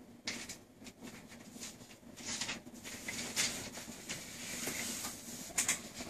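Handling noise from the phone filming as it is moved closer: soft rubbing and scuffing with a few short hissy brushes and light clicks over a faint steady hum. The bells are not rung.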